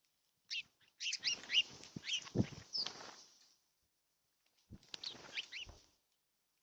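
Birds chirping at a feeder in two bursts of quick, sliding chirps, the first about three seconds long and the second shorter, over low rustling noise.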